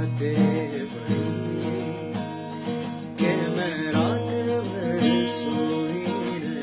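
Acoustic guitar strummed in a steady chord accompaniment, with a man's voice carrying a wavering melody line over it.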